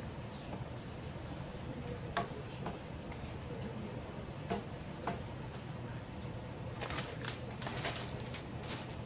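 A spoon knocking and scraping against a nonstick sauté pan as steaks are stirred in a thick sauce, over a steady low hum. Near the end a quick run of sharp clicks as a glass lid is set onto the pan.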